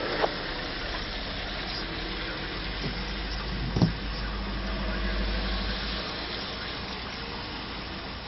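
Car interior noise in slow, queued traffic: a steady engine hum and the hiss of tyres on a wet road, with two short knocks, the louder just under four seconds in. The low engine hum thins out about six seconds in.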